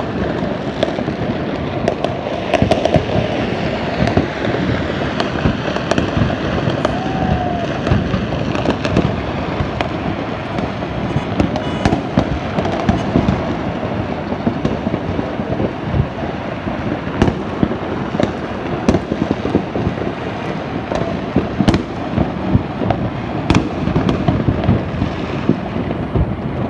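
Many aerial fireworks and firecrackers going off across a city at once: a dense, unbroken din of overlapping pops and bangs, with sharper cracks standing out every second or so.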